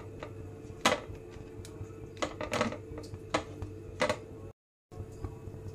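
Whole amla (Indian gooseberries) set down one by one into a metal saucepan with a little water, giving about half a dozen sharp knocks and clinks, the loudest about a second in. A steady low hum runs underneath.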